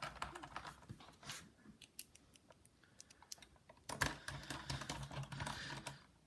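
Faint small clicks and scraping as a precision screwdriver drives a screw into a laptop's plastic bottom case. A denser run of clicking and rattling follows about four seconds in.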